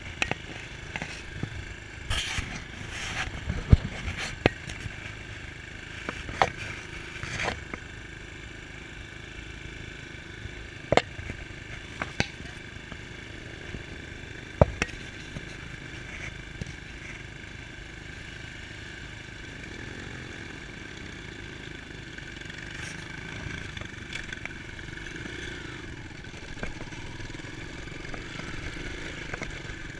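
Dirt bike engine running at idle, with sharp knocks and clatter in the first half as the handlebar camera mount is moved. Near the end the engine of a second dirt bike comes closer.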